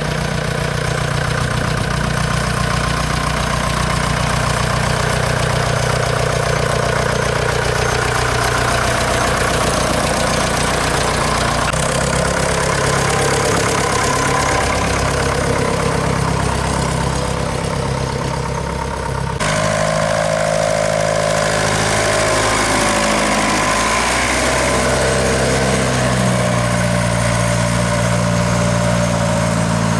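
Nuffield tractor engine running steadily at low speed as the tractor drives by. About two-thirds of the way through the sound changes abruptly to a different, slightly wavering engine note.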